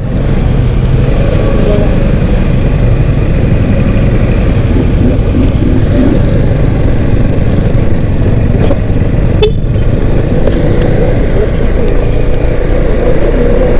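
Motorcycle on the move: wind rushing over the rider's microphone with the engine running steadily underneath. One short click about halfway through.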